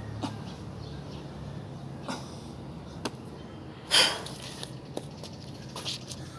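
Short sharp taps come about once a second, the loudest about four seconds in, over a steady low hum.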